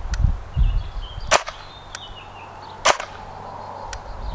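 Airsoft electric rifle firing two single shots about a second and a half apart, each a sharp crack, with fainter ticks between them.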